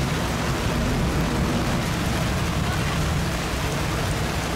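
Steady heavy rain pouring down, an even hiss with a low rumble underneath.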